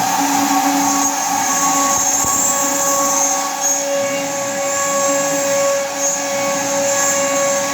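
Large servo-driven CNC router running: a steady machine whine made of several pitched tones that swell and fade as the axes move.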